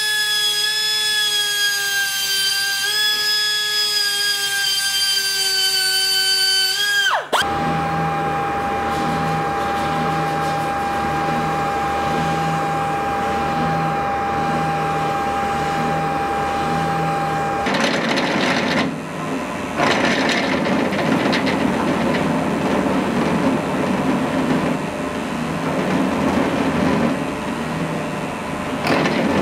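Workshop power tools on metal in three cuts. First a small high-speed rotary tool works a steel dagger fitting held in a vise, with a high whine that wavers and then rises and cuts off about seven seconds in. Next comes a steady machine tone over a low hum that pulses about once a second, and then, from about eighteen seconds in, the louder, noisier running of a drill press drilling the fitting.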